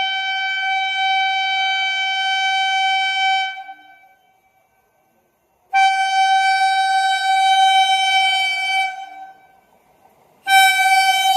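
Indian Railways locomotive horn sounding three long, steady blasts at a single pitch, each about three to four seconds, with short pauses between them; the third begins near the end.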